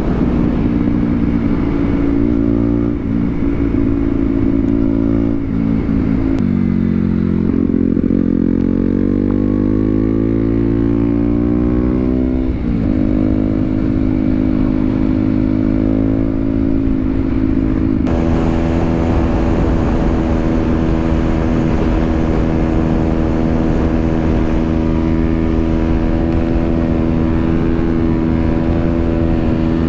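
KTM Duke 125's single-cylinder engine under way. It climbs in revs through the gears with brief dips at the shifts: a drop about six seconds in, a smooth rise in pitch, another dip near the middle. It then holds steady revs for the second half.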